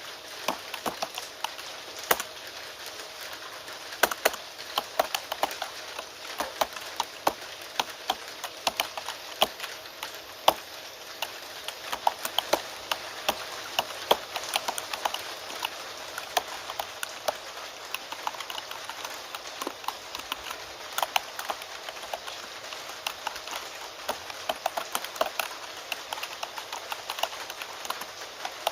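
Computer keyboard typing, with quick irregular key clicks, over a steady hiss of rain.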